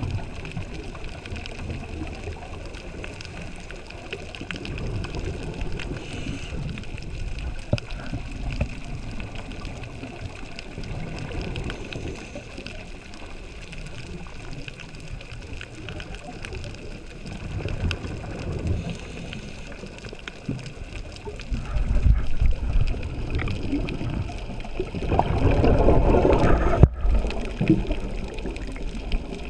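Muffled underwater noise picked up by a camera in a waterproof housing: a low rumble with gurgling of bubbles. A louder surge of bubbling comes near the end and stops abruptly.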